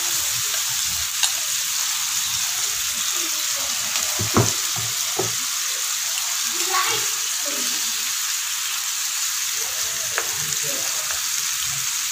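Food frying in a hot pan: a steady sizzle, with a few light knocks, the clearest about four seconds in.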